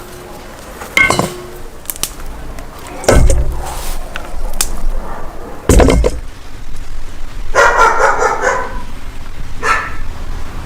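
A dog barking several times in short separate barks, with a longer pitched bark or whine about eight seconds in, among a few heavy thuds.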